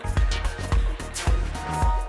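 Music with a steady beat, a low thump a little more than twice a second under pitched notes.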